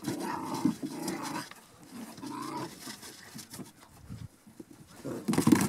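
Border Collie puppies growling and yapping as they play-fight, in short bursts that are loudest near the end.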